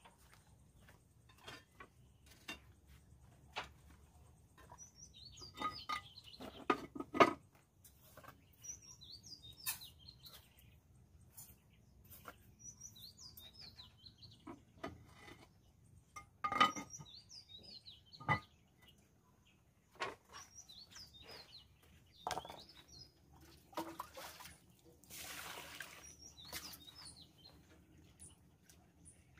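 Small birds chirping on and off, with scattered clinks and clanks of metal pots and dishes being handled, the loudest about 7 and 16 seconds in. Near the end comes a couple of seconds of water splashing as something is washed in a pot.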